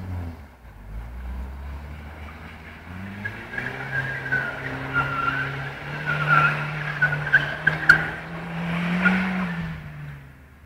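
Audi S3 quattro's turbocharged four-cylinder engine revving hard and held high as the car drifts on snow, with a wavering high tyre squeal over it. The revs climb from about three seconds in and fall away near the end.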